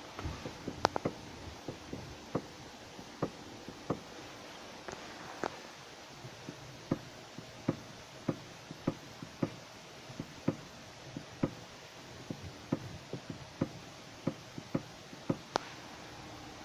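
Datsun on-DO's steering knocking as the wheel is turned: a long run of short, sharp clicks and knocks, about one to two a second and unevenly spaced. This is the steering knock on turning whose cause the owner is trying to find.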